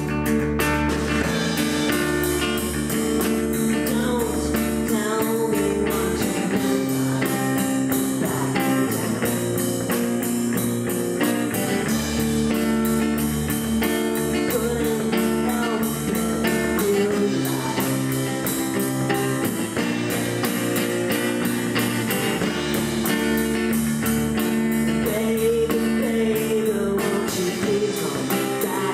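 A live indie rock band playing: acoustic and electric guitars with a drum kit keeping a steady beat, and a voice singing over them.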